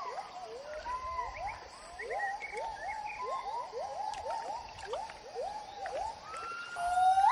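Gibbon song: a long run of short whooping notes, each sliding steeply in pitch, about three a second, then near the end a long rising note that swells to the loudest part.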